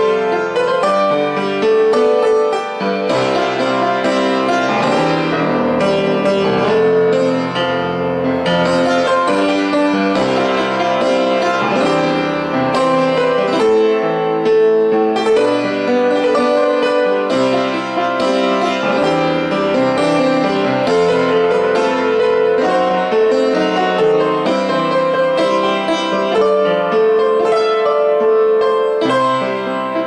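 Solo piano playing a song's melody over chords with both hands, notes and chords changing continuously at a steady level.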